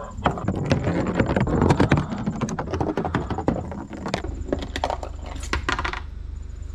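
A chicken egg rolling and clattering down a gravity roll-away chute of wood and metal, a dense run of knocks and rattles that stops about six seconds in as the egg comes to rest in a tray.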